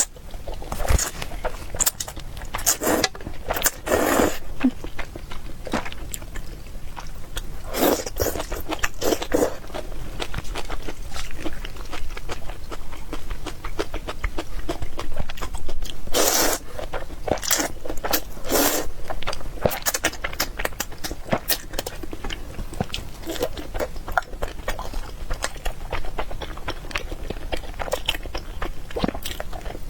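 Close-miked eating of spicy ramen noodles: continual chewing and wet mouth noises, with a handful of louder bursts of eating noise.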